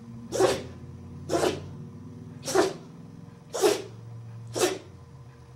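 A puppy sneezing five times in a row, short sharp sneezes about once a second.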